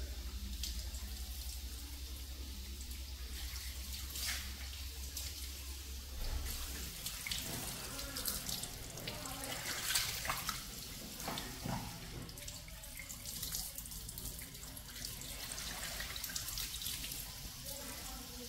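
Water running from a tap, with irregular splashing throughout.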